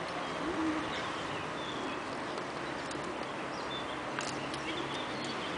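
Steady outdoor background noise with a few faint, short high chirps, and a light click about four seconds in.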